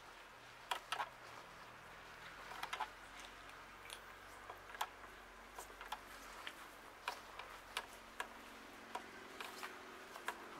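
Several cats chewing food from a shared tray: faint, irregular clicks and smacks, one or two a second.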